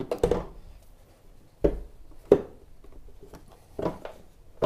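Jeep Gladiator hood being unlatched and opened: a few separate clunks and clicks, with a low thump under halfway and the sharpest click just after it.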